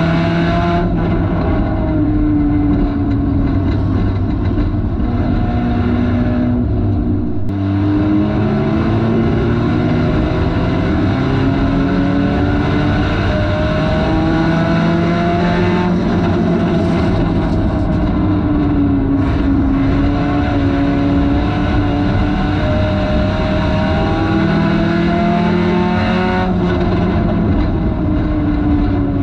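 Front-wheel-drive race car's engine at racing throttle, heard from inside the cabin, its pitch rising and falling again and again as it accelerates and backs off through the laps.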